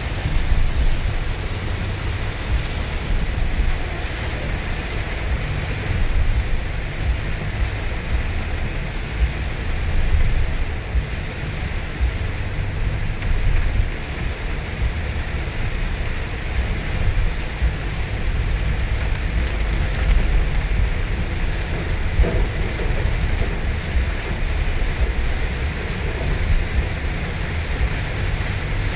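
Heavy rain beating on a moving car, heard inside the cabin of a first-generation Toyota Alphard, over a steady low rumble of tyres and road at highway speed on a wet road.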